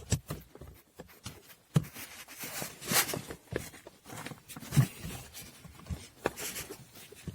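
Scattered clicks, knocks and rustling of plastic parts being handled and pressed into place as the heater fan is refitted.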